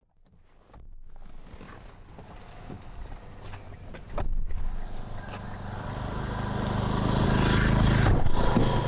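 A car driving, its engine and tyre noise growing steadily louder over several seconds as it comes closer.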